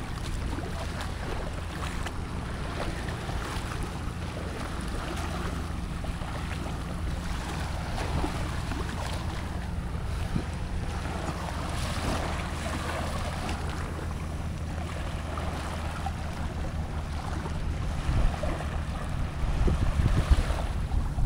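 Small waves washing up and drawing back on a sandy beach, with wind buffeting the microphone as a steady low rumble that grows louder and gustier near the end.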